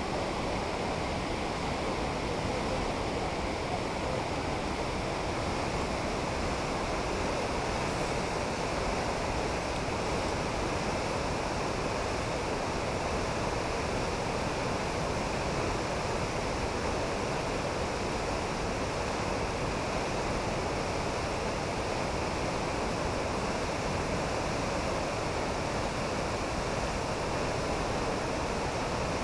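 Fast, swollen mountain river rushing through whitewater rapids: a steady, unbroken wash of water noise.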